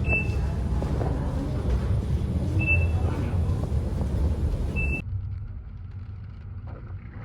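Low vehicle rumble with a short high beep three times, about two and a half seconds apart. About five seconds in, the sound drops suddenly to a quieter background.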